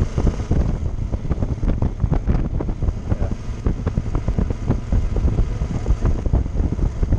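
Wind buffeting the microphone of a moving motorcycle in irregular gusts, with the motorcycle's engine running underneath.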